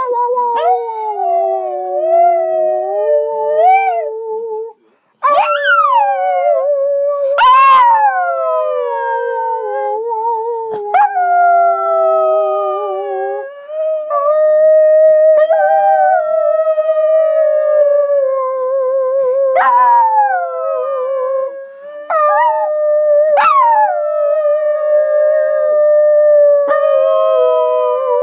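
A schnauzer howling along in long wavering notes that swoop up and slide back down, with a few short breaks for breath. Under the howls a woman sings, holding lower, steadier notes.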